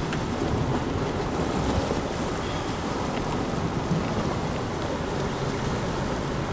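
Steady rushing noise of sea waves washing on rocks, mixed with wind buffeting the microphone.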